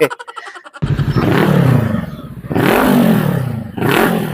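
Voge 525 DSX parallel-twin motorcycle engine blipped through an aftermarket full exhaust and muffler: three throttle revs, the first longest, each rising then falling back, after a faint ticking idle.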